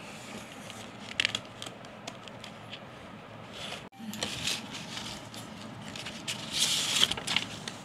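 Hands handling a cardboard box and the paper inside it: scraping and rustling with scattered light clicks, and louder paper rustling about two-thirds of the way through.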